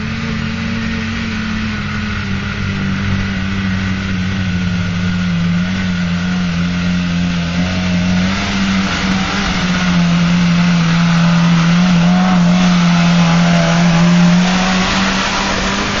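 Engine of a small 4x4 off-road vehicle pulling across a muddy field at steady revs, growing louder as it approaches and passes close. Its note drops a little for a few seconds past the middle, then rises again.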